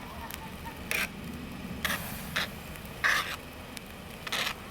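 Wood campfire crackling, with irregular sharp pops a second or so apart over a low steady hiss; the loudest pop comes a little after three seconds in.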